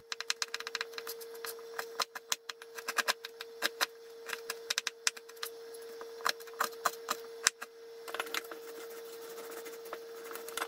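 Kitchen knife dicing an onion on a plastic cutting board: rapid, irregular knocks of the blade on the board, thinning out about eight seconds in. A steady faint hum runs underneath.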